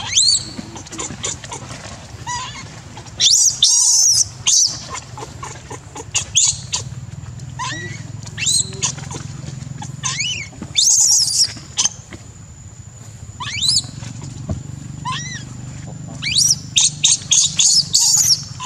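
Baby macaque screaming in repeated high-pitched shrieks that rise and fall, in bouts with short pauses and a fast run of cries near the end: the angry crying of an infant that is not being let to nurse.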